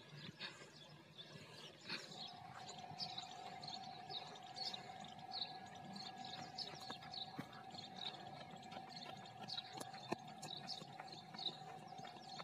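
Faint outdoor ambience: short high chirps repeating about twice a second, over a steady tone that starts about two seconds in and holds.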